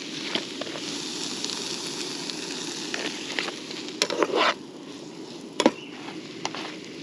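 A frying pan of chopped vegetables sizzling with a steady hiss, which eases about four and a half seconds in. A cluster of knocks and clatter comes around four seconds, then a sharp clink and lighter scrapes as a metal spatula stirs in the pan.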